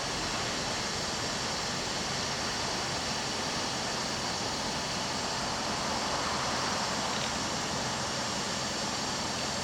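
Freight train wagons rolling past, a steady rushing noise with no distinct wheel clacks.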